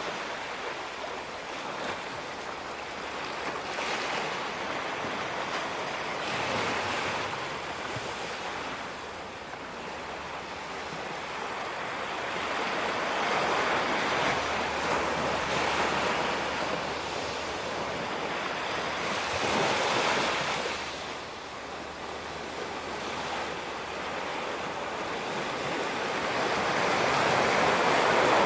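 Ocean surf breaking and washing up a beach, swelling and ebbing in several waves.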